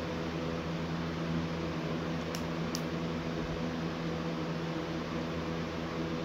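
Steady machine hum, like a running fan, with a low drone of several held tones over a soft hiss. Two faint light clicks come close together about two and a half seconds in, as small plastic pieces are pressed together.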